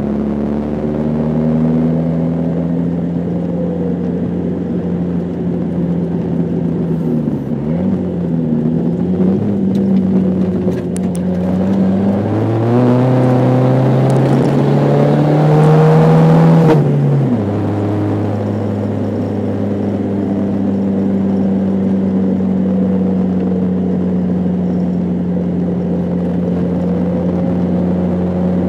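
Car engine heard from inside the moving car, running at a steady drone. About twelve seconds in it speeds up, its pitch climbing for about four seconds as it gets louder, then drops suddenly and settles back to a steady cruise.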